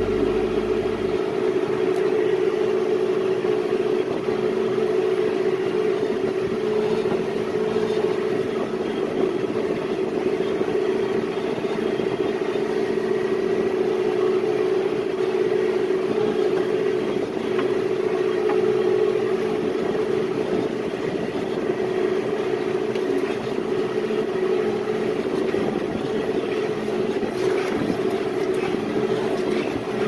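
John Deere 5100E tractor's diesel engine running steadily under load while pulling a John Deere 435 round baler along a hay windrow, a constant mechanical drone.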